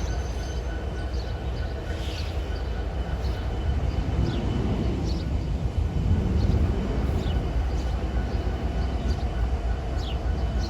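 Freight train rumbling low and steady as it slows to a stop, with short high squeaks every second or two.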